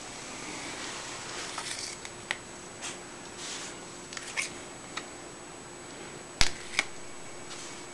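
A young cat eating from a hand, making small scattered clicks and crackles, with two sharp clicks about six and a half seconds in, over a faint steady hum.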